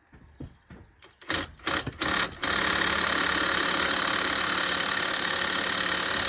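Impact wrench given a few short blips, then hammering steadily for about four seconds on a 19 mm suspension nut that is seized tight and does not undo.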